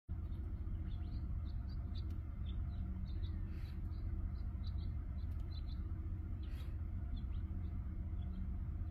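Small birds chirping, many short high notes scattered throughout, over a steady low rumble.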